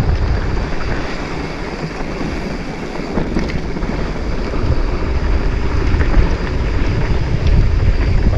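Wind buffeting the microphone as a mountain bike rolls down a rocky trail. It is a loud, steady rumble that eases a little about two seconds in and builds again after about five seconds.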